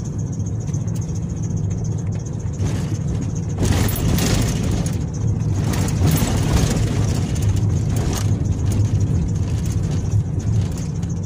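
Engine and tyre noise heard from inside the cabin of a vehicle driving slowly on a rough, cracked road: a steady low drone, with louder stretches of road noise from a few seconds in until about eight seconds in.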